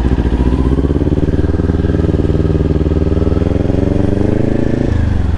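Kawasaki Ninja 400's parallel-twin engine running under way, its note climbing slowly as the bike gathers speed, then dropping suddenly near the end before rising again.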